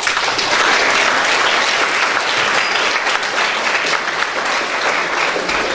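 Audience applauding: many hands clapping at once, starting abruptly and holding steady.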